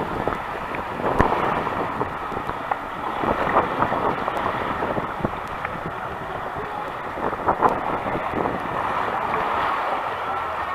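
Rushing, splashing water under an inner tube sliding down a water slide, with wind buffeting a tube-mounted action camera's microphone and a few sharp knocks.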